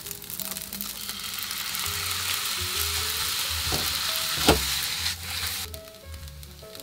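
Egg fried rice and instant noodles sizzling in a hot nonstick frying pan as they are stirred together with a spatula. The sizzle builds, holds steady, then drops away near the end, with two sharp knocks about four seconds in.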